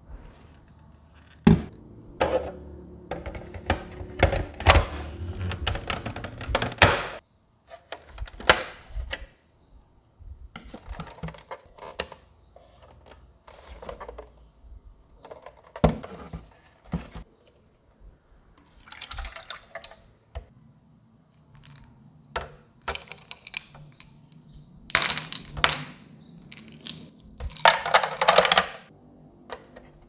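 Hard plastic parts of a small desktop air cooler being handled and fitted together: scattered clicks, knocks and rubbing of the grille, housing and tank lid.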